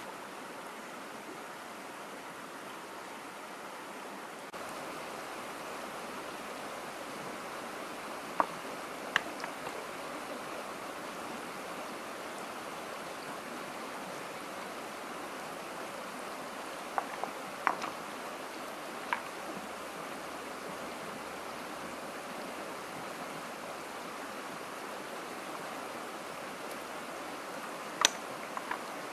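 Shallow rocky stream running steadily, with a few sharp clicks of stones knocking together as rocks are turned over by hand, the loudest near the end.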